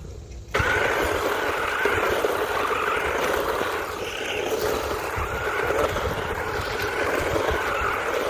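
Electric RC monster truck driving across wood chips, its motor whining steadily with small rises and falls in speed, starting about half a second in. Low wind rumble on the microphone underneath.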